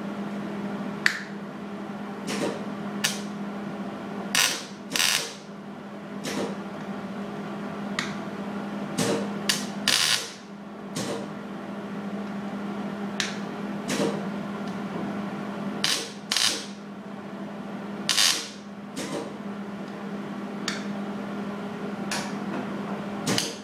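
MIG welder laying short tack welds along a butt-welded patch panel in car body sheet metal: a string of brief crackling tacks, each a fraction of a second long, about one a second at an uneven pace, over a steady low hum.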